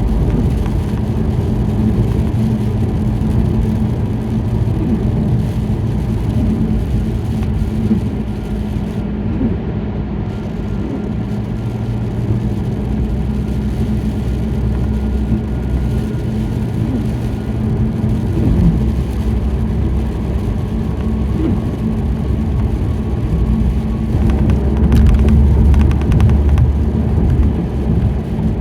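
Car driving in the rain, heard from inside the cabin: steady engine and road rumble, a little louder near the end.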